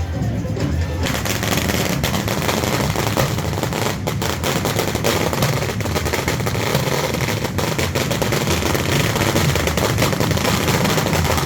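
A long, rapid string of firecrackers going off in quick succession, a dense crackle of bangs that starts about a second in and keeps going.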